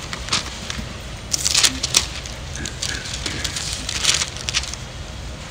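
Bible pages being turned: irregular papery rustles and crinkles, loudest about a second and a half in and again about four seconds in.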